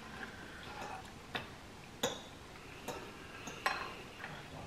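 Spoons and forks clinking lightly against bowls during a meal: several sharp, separate clicks, roughly one a second.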